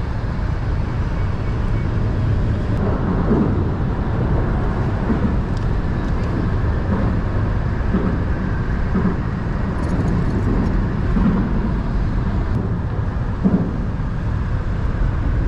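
Steady low rumble of motor-vehicle noise.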